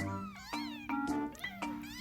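Cat meows over music: short gliding meows on top of a run of steady, sharply struck notes.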